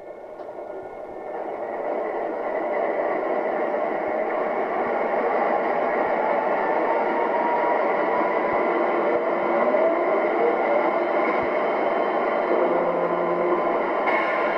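Diesel engine sound from an MTH ES44AC O-gauge model locomotive's onboard sound system, played through its small speaker. It builds up over the first two seconds and then runs steadily, like an idling GE diesel, with faint tones gliding up and down in pitch partway through.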